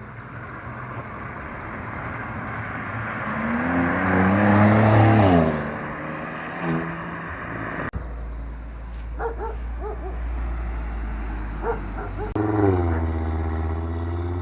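A car drives past with its engine pitch rising and then falling, loudest about five seconds in. After a cut there is a low steady rumble with a few short dog barks, and near the end another car engine runs at a steady low note.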